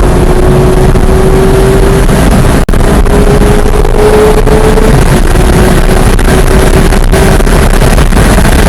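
Porsche 991.1 GT3's flat-six running hard on track: the engine note climbs slowly, drops at a gear change about five seconds in, then climbs again. Heavy wind and road noise sit under it.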